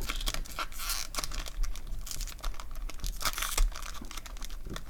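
A foil trading-card pack wrapper being torn open and crinkled by hand, in a run of irregular crackles and rustles.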